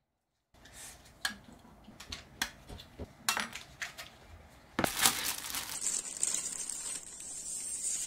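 Hobby nippers cutting plastic parts from a 1/24 styrene model car body: a series of sharp clicks and snaps as the blades bite through the plastic, the loudest about five seconds in, with handling noise and a steady high hiss in the last two seconds.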